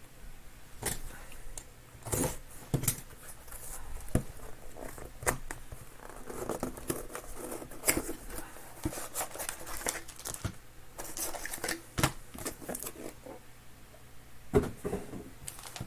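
Hands opening a sealed trading-card box and handling its packaging: irregular rustling, tearing and scraping with sharp clicks and taps, and one louder knock near the end.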